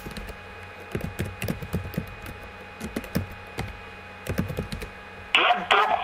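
Computer keyboard being typed on: irregular runs of clicking keystrokes, heard over a voice-chat line with a faint steady hum underneath.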